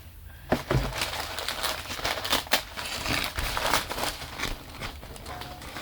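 Paper wrapping rustling and crinkling as it is unfolded, with many sharp crackles.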